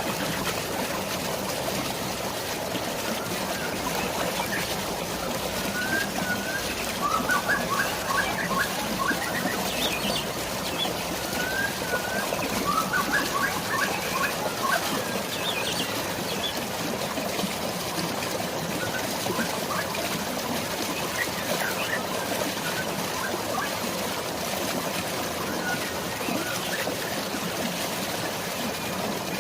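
Steady rush of flowing water, with birds chirping over it. The birdsong comes in clusters of quick repeated chirps and short slurred whistles, busiest about a third of the way in.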